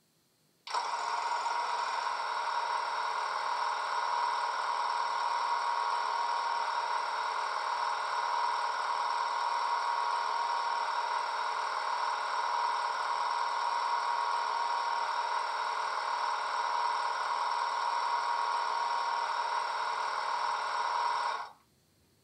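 A Legomanbiffo DCC sound decoder in a Heljan OO gauge Class 86 model plays the electric locomotive's standing sound through a 27mm speaker: a steady electrical whine and hum with a strong single tone. It starts suddenly about a second in and cuts off abruptly near the end.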